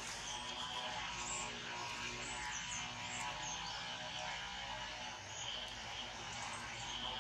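Steady outdoor background hum and buzz, with a few faint high chirps in the first few seconds.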